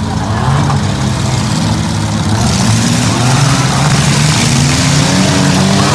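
Several minivan and small-truck engines running and revving in a demolition derby, their pitches rising and falling over each other. A broad hiss joins in about two and a half seconds in.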